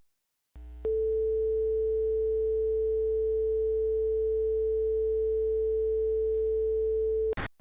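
Steady single-pitch electronic tone over a low hum, held for about six and a half seconds and cutting off abruptly near the end.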